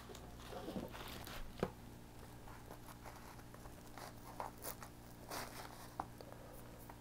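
Faint rustling and crinkling of the paper and cardboard under a pizza, with small scattered clicks, as a slice is pulled apart from the pie.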